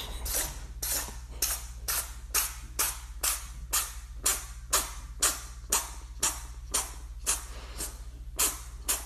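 A kitten sneezing over and over in a rapid, even run, about two sneezes a second, over a steady low hum.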